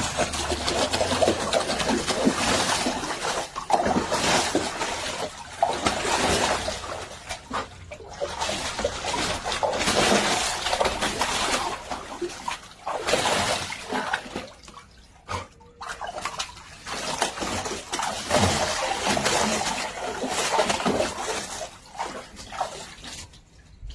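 Water splashing and sloshing as a dog moves about in a shallow foldable dog pool, in uneven surges that quieten near the end.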